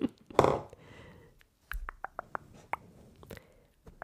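Close-miked ASMR trigger sounds: a loud brief rustle about half a second in, then a run of quick, soft clicks right at the microphone.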